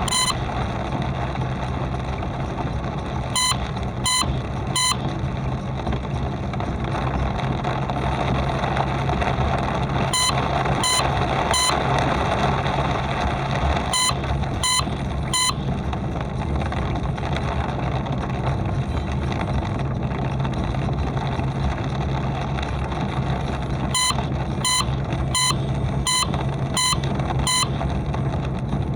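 Steady noise of a car driving in rain, a constant low engine hum under a wash of road and rain noise. Short, high electronic beeps come in runs of three, about 0.7 s apart, several times, with a longer run of six near the end.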